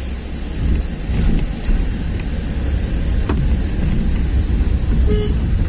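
Steady rushing of a mountain stream falling toward a waterfall, a loud, even roar of water.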